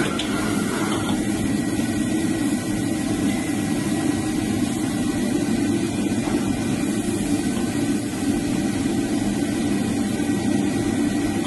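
Steady roar of a restaurant wok stove's gas burner, with food sizzling in the wok as it is stir-fried.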